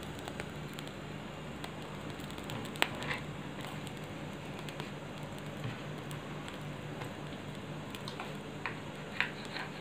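Kitchen knife cutting and scraping a soft sheet of ground chicken-and-bread mixture on a wooden chopping board: quiet soft cuts with a few sharp clicks of the blade on the board, the clearest about three seconds in and near the end, over a low steady hum.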